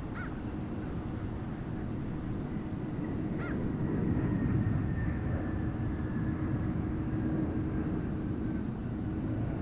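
Distant Gulfstream G-IV business jet on the runway: its Rolls-Royce Tay turbofans give a steady low rumble that swells a little about four seconds in, with a faint high whine slowly falling in pitch. A bird gives short calls near the start and again about three and a half seconds in.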